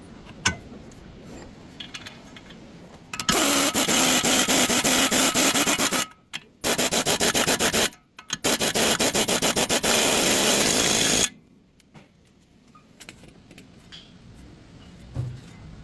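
A power tool running in three bursts of a rapid rattle, about three, one and three seconds long, with short pauses between them. Around it are a few faint clicks of tool handling.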